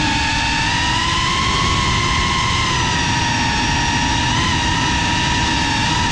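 FPV racing quadcopter's electric motors and propellers whining at a high pitch with a stack of overtones. The pitch rises a little about a second in and wavers slightly with the throttle, over a low rushing noise.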